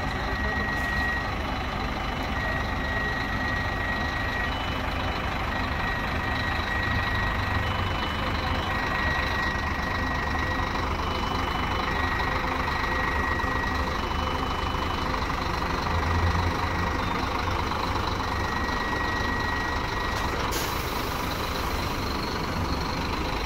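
Two-tone reversing alarm on a Marcopolo G8 Paradiso 1200 coach with a Scania K400 chassis: a short higher beep and then a longer lower one, repeating about every three seconds over the low rumble of the diesel engine. The beeping stops about 20 seconds in and a steady hiss of air starts.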